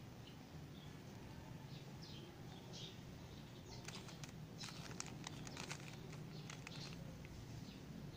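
Faint plastic clicking of a Rubik's cube as its layers are turned, in quick clusters from about four seconds in, over a steady low hum. A few faint bird chirps sound in the background.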